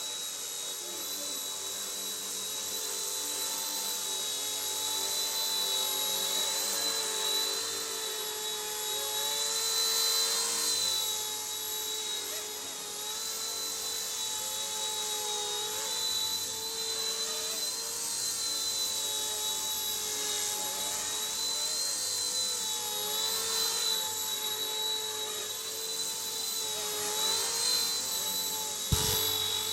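Small RC Era C138 Bell 206 scale RC helicopter in flight, its rotors and motor making a steady high whine that wavers slightly in pitch as the throttle shifts. A single sharp knock near the end.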